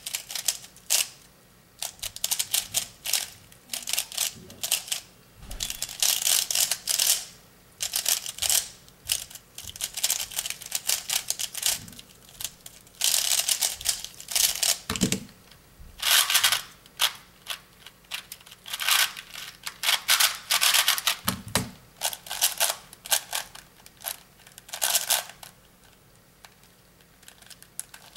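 Plastic speedcubes being turned fast, a ZhanChi 3x3, then a 2x2, then a ShenShou 5x5: bursts of rapid clicking and clattering from the layer turns, broken by short pauses. Twice, a low knock comes as a cube is set down on the table.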